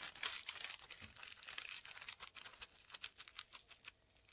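Thin kitchen aluminium foil being scrunched and squeezed by hand into a lump: a dense run of crinkling crackles that thin out and grow quieter toward the end.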